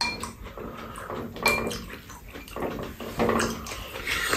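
Ramen noodles being slurped in several short wet bursts, with a few light clinks of a spoon and chopsticks against the bowls.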